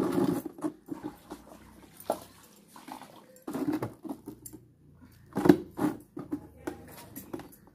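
Hand-washing laundry: irregular slaps, knocks and splashes of wet cloth and hands in a tub, loudest right at the start and again about five and a half seconds in.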